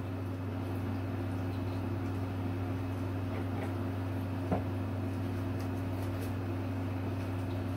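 Steady low hum of room background, with one faint click about four and a half seconds in.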